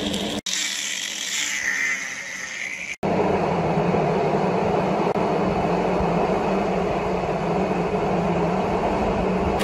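Stick (SMAW) welding arc: a steady crackling hiss with a low hum underneath. The sound is cut off abruptly twice in the first three seconds, with a higher, hissier stretch between the cuts.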